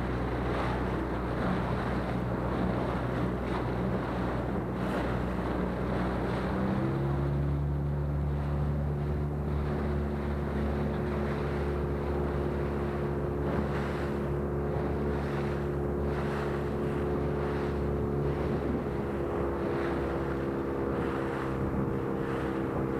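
Outboard motor of a small skiff running underway. Its engine note steps up to higher revs about seven seconds in and then holds steady, with wind buffeting the microphone and water rushing past the hull.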